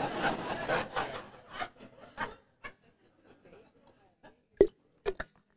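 Congregation chuckling and murmuring, fading out within the first two seconds. Then it is nearly quiet until a sharp click, the loudest sound here, and two smaller clicks about half a second later while a metal water bottle is drunk from at the headset mic.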